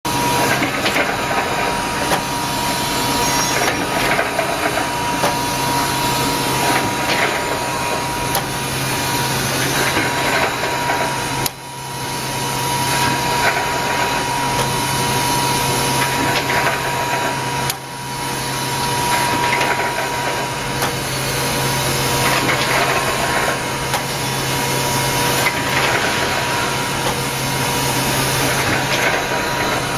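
Reinforcing mesh welding machine running: a loud, steady mechanical din with a low hum and a steady high whine over a dense hiss. It dips briefly twice, once about a third of the way in and again a little past the middle.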